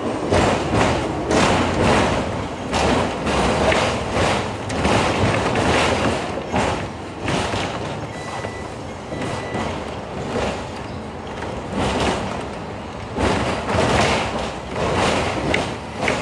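Hong Kong double-decker electric tram running along the street track, heard on board: the car rattling and its wheels knocking over the rails in a string of irregular clatters over a steady running noise.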